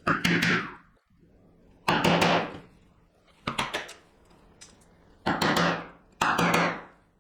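Chisel cutting into walnut in five strokes, each a sharp knock that trails off in a short rasp of the blade through the wood, while the waste is cleared from the face side of a dovetail's tail board.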